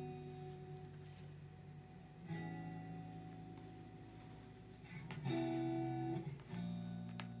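Background guitar music: chords struck every second or two and left to ring.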